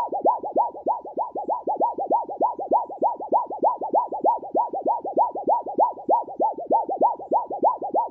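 A sheet of metal being wobbled back and forth quickly by hand, making a fast, even warbling "wub-wub", about five swells a second.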